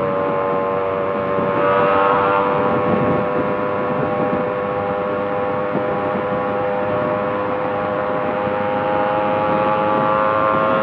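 Yamaha RX two-stroke motorcycle engine running at a steady high cruise on its aftermarket 'inbuilt chamber' exhaust, with a high, droning exhaust note. It swells briefly about two seconds in, and its pitch rises slightly near the end.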